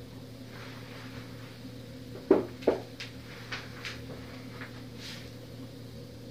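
Two sharp knocks about a third of a second apart, then several lighter clicks and taps, as small household objects are handled and set down, over a steady low hum.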